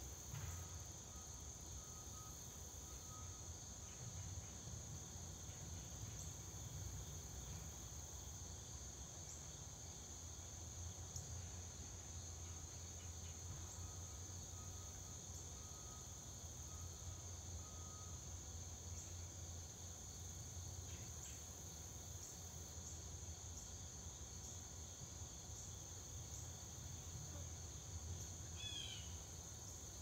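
Faint steady high-pitched insect chorus, with a low rumble underneath and a brief chirp near the end.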